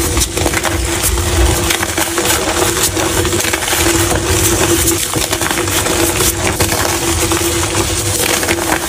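Blocks of gym chalk being crushed, a dense, unbroken run of crisp crunching and crumbling.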